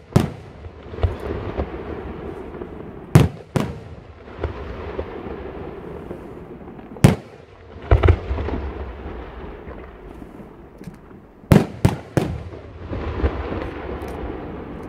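Aerial firework shells bursting in the sky: about eight sharp bangs, some in quick pairs and a rapid triple near the end, with a rolling, echoing rumble between them.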